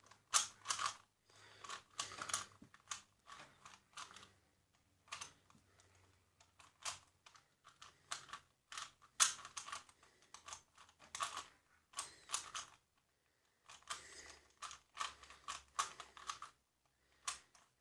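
A Rubik's Cube brand 3x3 puzzle cube being solved by hand: rapid runs of plastic clicks and clacks as its layers are turned, broken by short pauses.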